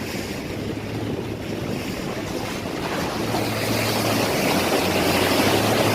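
Water running steadily over a muddy toy ship as it is washed, a rushing noise that grows slightly louder, with a low hum underneath that comes and goes.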